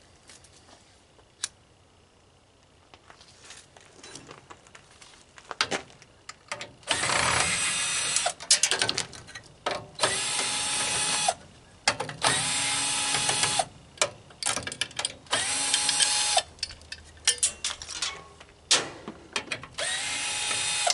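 Power drill driving screws out of a dehumidifier's casing, in about five short runs that each spin up, hold and stop, with clicks and clatter of handling between them. The first several seconds hold only faint handling clicks.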